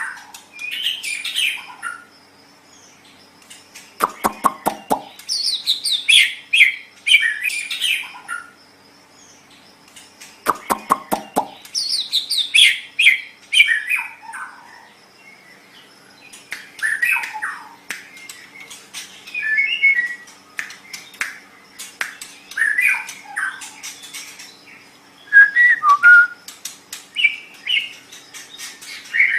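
White-rumped shama singing in short, varied phrases of fast whistled sweeps and trills, separated by brief pauses. Two bursts of rapid clicking come about 4 and 11 seconds in.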